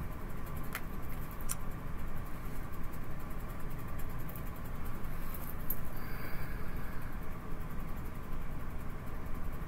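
Tarot cards being laid on a cloth-covered table: two light taps about a second in, over a steady low background rumble.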